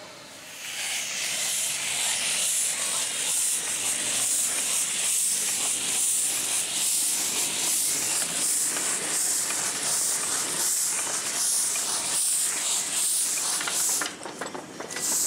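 Steam escaping from a steam locomotive: a loud, steady hiss that starts about half a second in and drops away briefly near the end before coming back.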